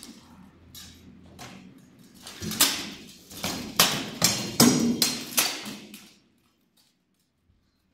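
Sword-and-shield fight in plate armour: swords striking shields and armour in a rapid flurry of a dozen or so sharp blows. The blows are loudest in the middle and stop about six seconds in.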